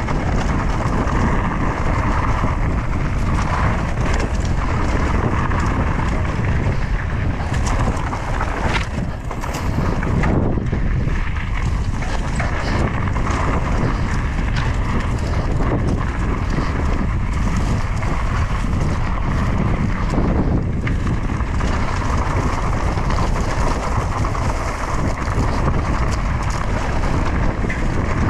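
Wind buffeting the camera microphone of a mountain bike rider on the move, a steady loud rushing that dips briefly about nine seconds in.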